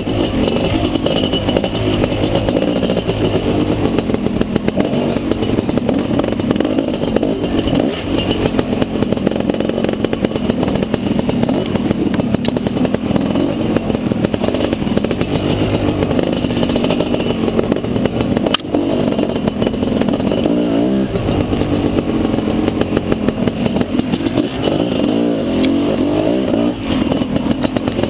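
Dirt bike engine running hard over rough trail, its revs rising and falling again and again as the throttle is worked, with rattling from the bike. A single sharp knock about eighteen seconds in.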